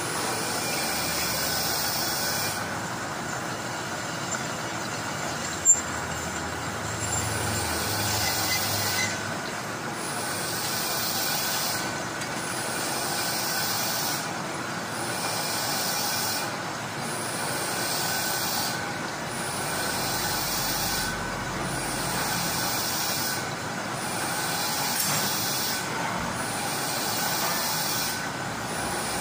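Metal lathe running with a cutting tool grooving a spinning metal shaft: a steady machine hum under a hissing cutting noise that swells and fades every couple of seconds as the tool bites. One sharp click about six seconds in.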